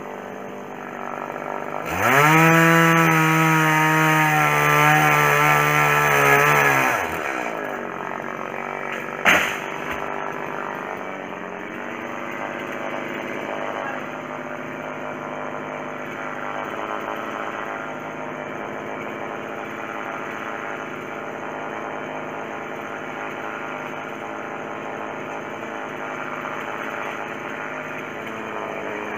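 Two-stroke chainsaw revved up to full throttle about two seconds in, held there for about five seconds, then dropping back to a steady idle. There is a single sharp knock a couple of seconds after the revving stops.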